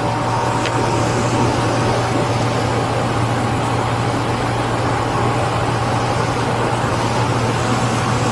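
Steady low hum of a car engine running, with a faint high tone over it and no change in pitch.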